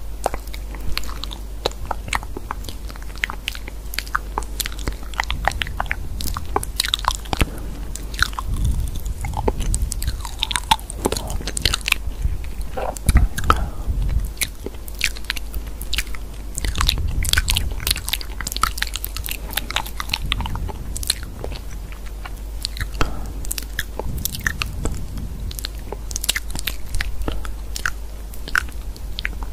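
Fingers typing on a phone's touchscreen keyboard, a fast, irregular run of crisp taps and clicks over a steady low hum.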